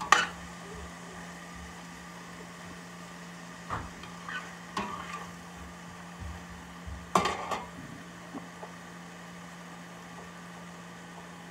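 Vegetables sizzling softly in butter in a stainless steel skillet, with a few scrapes and knocks of a metal spatula against the pan as they are stirred, the loudest about seven seconds in. A steady low hum runs underneath.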